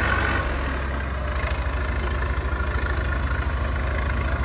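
Diesel engines of a Swaraj 855 and a Farmtrac 60 tractor running under load in a tractor tug-of-war, a steady low pulsing. About half a second in, the higher hiss drops away.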